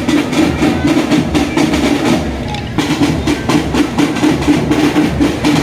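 Marching drum band playing: snare and other drums beat a steady, rapid rhythm. There is a brief lull a little over two seconds in, then the beat picks up again.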